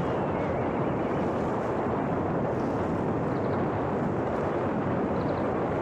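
Steady rush of wind noise across the microphone, with a few faint, high, short bird chirps.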